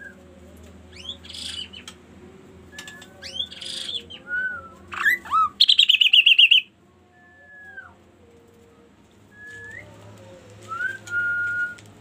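Caged kaso-kaso bird singing a varied run of short whistled notes and glides, with a loud, rapid trill about six seconds in. Near the end comes a rising note and a held whistle.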